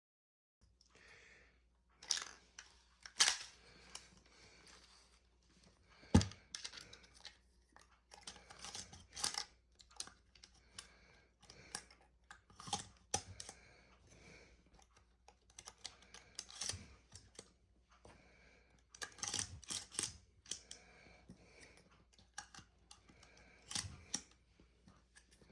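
Handling noise from a full-metal MGC Remington M31 model shotgun: irregular clicks and knocks with faint rustling between them. The sharpest knock comes about six seconds in.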